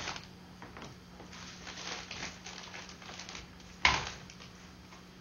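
Faint rustling and handling noises over a steady low electrical hum, with one sharp knock about four seconds in.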